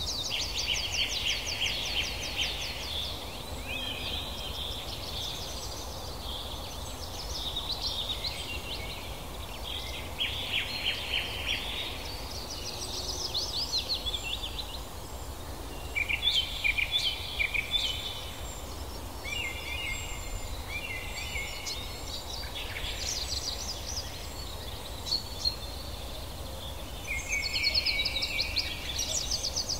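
Wild birds singing over a steady background hiss: a series of rapid trills and warbled phrases, one after another.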